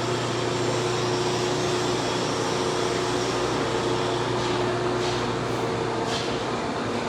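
Steady drone of running machinery: an even hiss with several low, constant hums and a few faint ticks near the end.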